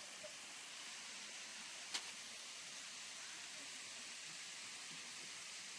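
Faint steady hiss with a single sharp click about two seconds in.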